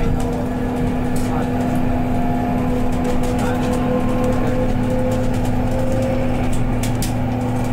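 A BYD K9UB battery-electric bus in motion, heard from the passenger cabin: a steady low hum and road rumble, with a faint whine from the electric drive that rises slightly in pitch partway through and light rattles of interior fittings.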